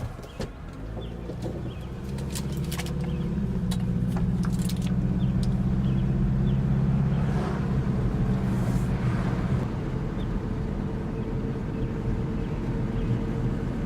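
A motor vehicle's engine running with a steady low hum, growing louder over the first few seconds and then holding level.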